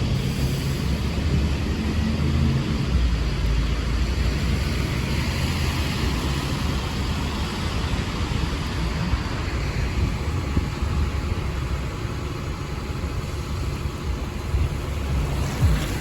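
Bus diesel engine running at low revs, with the steady hiss of traffic on a wet road. The engine is strongest in the first few seconds.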